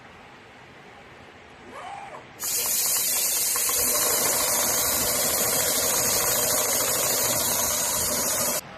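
Steady hiss of compressed air from the CNC sewing machine's pneumatics, starting abruptly about two and a half seconds in and cutting off suddenly near the end, over a faint machine background.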